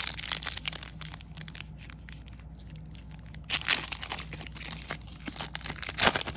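Wrapper of a Topps trading-card pack being torn open and crinkled in the hands, a dense crackling with a louder rip about three and a half seconds in and another near the end.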